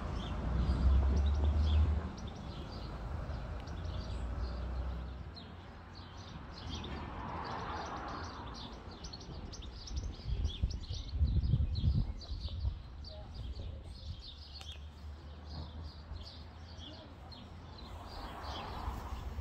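Small birds chirping repeatedly in short high notes, over a low rumble that swells in the first two seconds and again about eleven seconds in.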